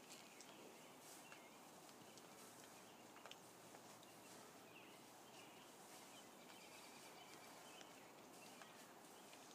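Near silence: faint outdoor ambience, with scattered faint ticks and a few faint high chirps.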